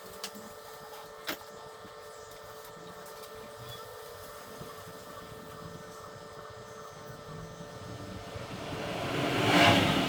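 A steady mechanical hum, with two light clicks about a second apart near the start, then a vehicle's rushing noise that swells to a peak near the end and begins to fade.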